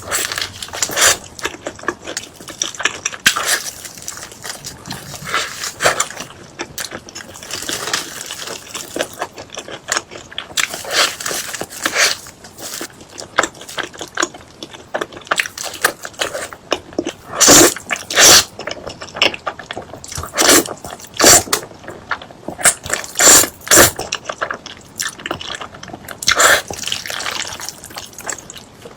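Close-miked eating sounds: wet chewing, smacking and crunching bites, coming irregularly with a few louder bites in the second half.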